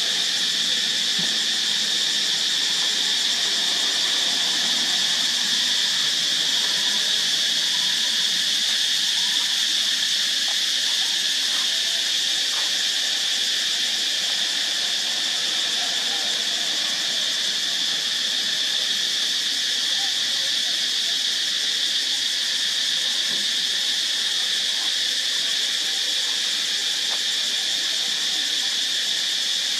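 Insects droning steadily in one unbroken, high-pitched chorus.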